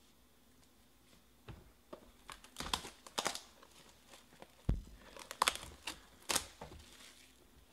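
Plastic shrink-wrap being torn and crinkled off a sealed Panini Obsidian basketball card box: a run of crackles and short rips starting about a second and a half in, the loudest near the middle.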